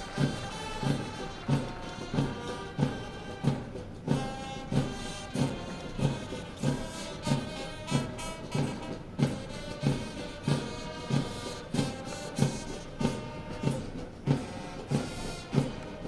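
Military band music with a steady, heavy beat about three times every two seconds under a held melody.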